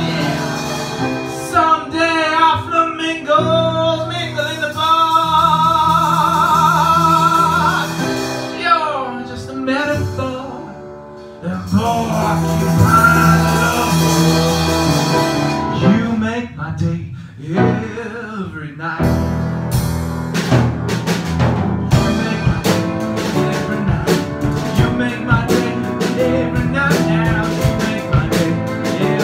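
A live band plays, a male voice singing long wavering notes over upright piano and drum kit. About 19 seconds in, the drums become busy, with steady cymbal and drum hits under the voice and piano.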